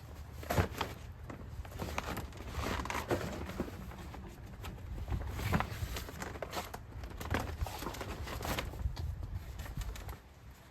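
Handling noise from a part being fitted on: irregular knocks, clicks and rustling, over a steady low hum.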